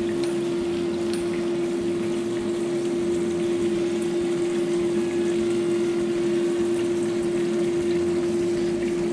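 Chicken wings deep frying in hot lard in a cast iron pot: a steady sizzle and bubbling of the oil, with a constant hum underneath.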